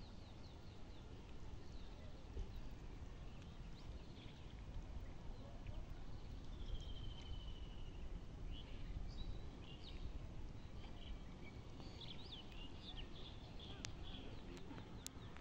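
Open-field ambience: a low steady rumble with scattered bird chirps, including a short trill about seven seconds in. A few sharp clicks come near the end.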